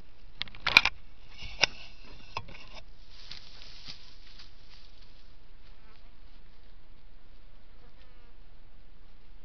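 A fly buzzing close to a trail camera's microphone in short bursts over the first few seconds, fading after that, with a few sharp clicks in the first second or two. A steady faint hiss from the camera runs underneath.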